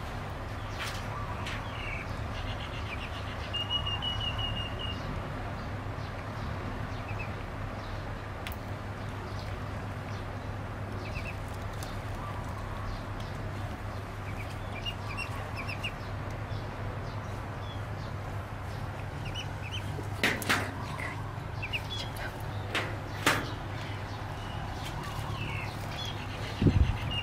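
Duckling peeping in short, high calls scattered through, over a steady low hum. A few sharp knocks come in the last third.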